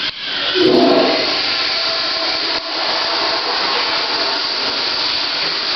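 Automatic self-flushing public toilet flushing on its own: a sudden loud surge of rushing water that starts at once and carries on steadily.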